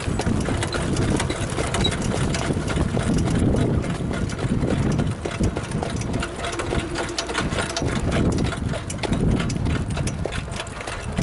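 Standardbred trotter's hooves beating quickly and steadily, over a steady low rumble.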